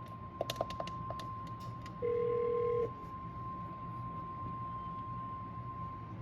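IP desk phone being worked: about eight quick sharp clicks in the first two seconds, then one steady low phone tone lasting just under a second, over a constant faint high whine.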